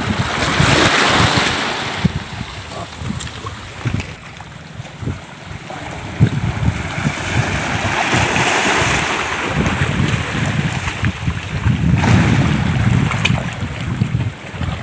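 Small sea waves washing and breaking over shoreline rocks, the hiss swelling twice, with gusts of wind buffeting the microphone.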